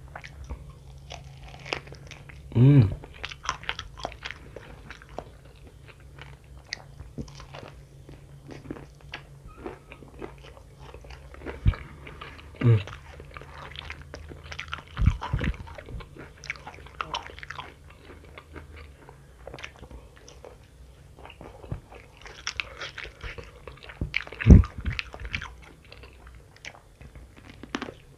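Close-up crunching, biting and wet chewing as a person eats sauce-coated fried chicken, tearing meat off the bone, with many small crackles. A few louder low knocks stand out about halfway through and near the end.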